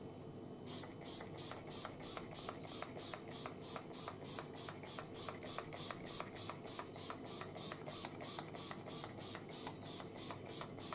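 Rimmel Insta Fix and Go setting spray pumped again and again onto the face: a fast, even run of short misting hisses, about three or four a second, starting under a second in and going on for about ten seconds.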